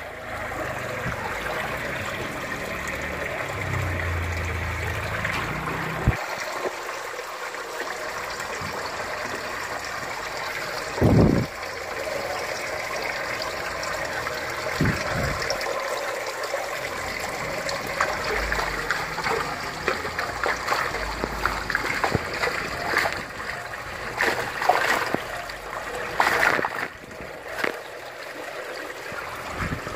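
Water pouring and trickling steadily into an aquaponics fish tank, with a couple of dull thumps partway through and several sharper splashes near the end as a dip net is worked in the water.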